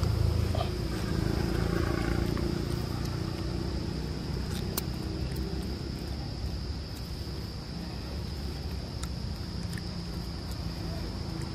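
Steady high-pitched drone of insects, with a low rumble that eases off over the first couple of seconds and a few faint clicks.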